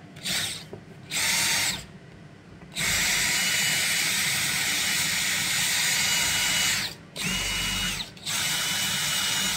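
Cordless drill drilling out the rivets of a broom's metal handle socket, running in several bursts: two short ones, a long run of about four seconds, then two more.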